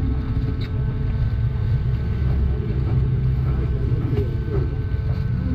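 Steady low rumble with a few faint clicks and rustles of handling.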